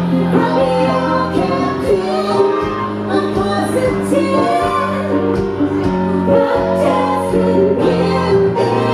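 Live song with a woman singing over a Roland electronic keyboard and a strummed acoustic guitar. Held low keyboard notes sit under the voice, and the guitar keeps a steady strummed rhythm.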